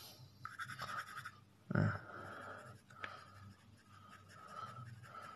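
2B graphite pencil shading on paper with quick, repeated strokes, light shading worked upward across a drawn circle; the scratching is steady and soft after the first second or so. A single dull thump, the loudest sound, comes just under two seconds in.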